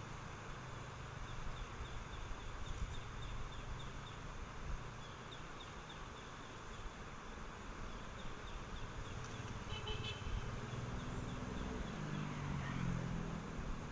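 An insect chirping in quick runs of short high notes, several a second, over a steady low background rush.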